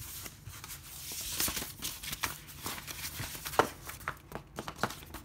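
Paper poster and printed card rustling and crinkling as they are handled and folded, with several sharp clicks and taps. The loudest comes about three and a half seconds in.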